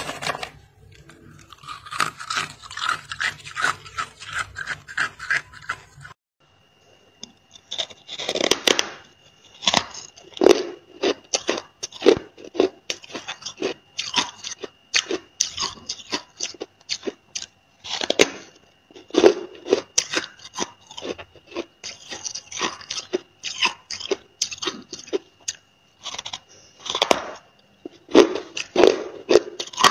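Freezer frost being scraped in quick, regular strokes, about three a second, for the first few seconds. After a brief gap come close-up bites and crunchy chewing of a packed block of freezer frost, sharp crunches every second or so.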